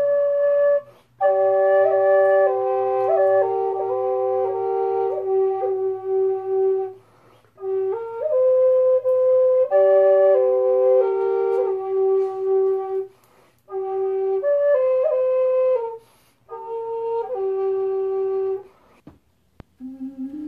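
Wooden Native American-style double flute playing a slow melody over a held drone note, in phrases with short pauses for breath between them. The playing stops near the end.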